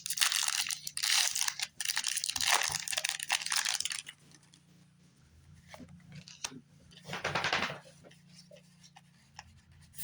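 A foil Pokémon booster pack crinkling and being torn open, dense and crackly for about the first four seconds. Then quieter scattered rustling, with one short burst of crinkling about seven seconds in.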